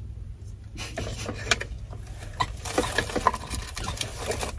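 Crackly rustling and crinkling of plastic, with many small clicks, as a plastic water bottle and wrapped cough drops are handled. It is densest about three seconds in.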